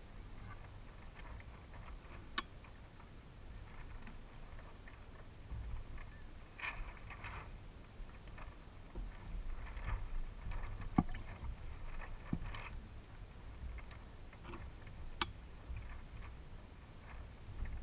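Water lapping and trickling against the hull and outriggers of a Hobie Adventure Island sailing kayak drifting in near-calm, over a low steady rumble, with scattered sharp clicks and knocks from the boat, the loudest about eleven seconds in.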